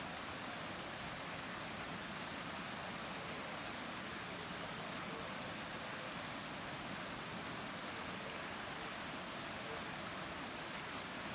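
Steady rushing of a waterfall, an even wash of water noise that does not change.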